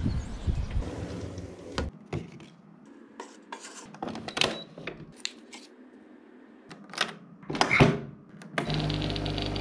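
Capsule coffee machine being handled, with a series of plastic clicks and knocks as its lever is opened and shut, the loudest knock near the end. About a second before the end its pump starts with a steady buzzing hum as brewing begins. Before this, the first couple of seconds hold street noise.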